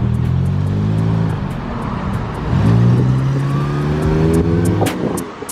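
Car engine accelerating, its pitch rising, dropping at a gear change about two and a half seconds in, then climbing again and holding steady before it fades near the end.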